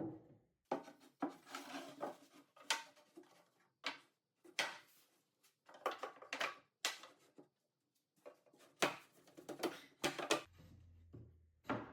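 Irregular wooden knocks and clatter as spacers and a plywood shelf are handled and set into place inside a cabinet. A faint low hum comes in near the end.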